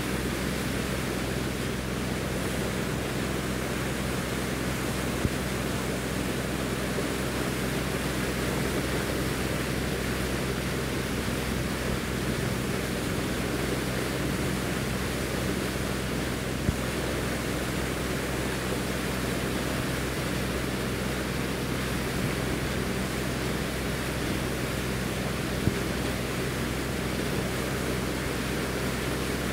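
Riverboat's engine droning steadily under a constant rush of wind and water, with a few faint clicks.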